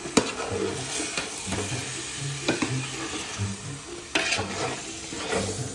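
A metal ladle stirring and scraping raw chicken with fried onions and masala in a large aluminium pot, the food sizzling. The ladle knocks against the pot about once a second.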